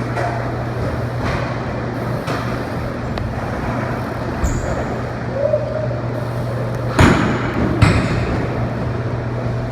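Steady low hum over a noisy background rumble, broken by a few knocks, the two loudest about seven and eight seconds in.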